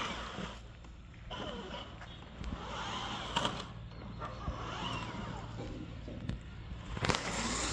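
An electric toy car driving over rough ground, its motor and wheels running unevenly, with a few clicks and knocks.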